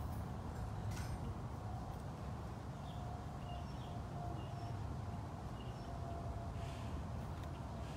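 Outdoor background noise: a steady low rumble with a few faint, short high chirps scattered through it.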